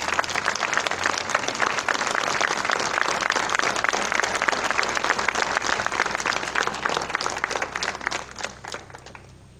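Audience applauding, many people clapping hands together in a dense run of claps that thins out and dies away near the end.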